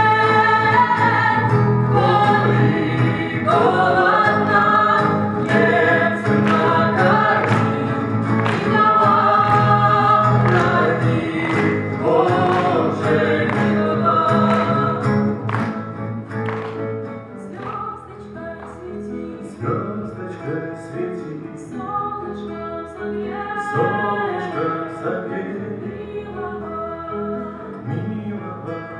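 Song performed with voices and two guitars. The singing ends about halfway through, and the guitars carry on alone, more quietly, with single plucked notes ringing out.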